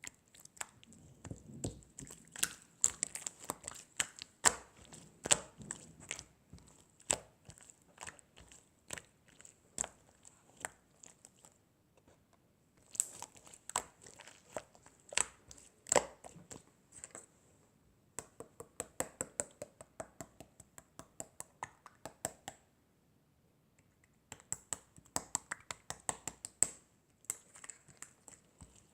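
Rapid series of sharp clicks and taps in three bursts separated by short pauses.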